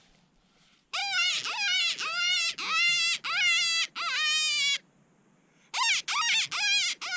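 Mouth-blown predator hand call sounding high-pitched wailing distress cries, blown to pull a departing coyote back in. About a second in, a run of six short cries starts; after a pause of about a second a second run begins near the end.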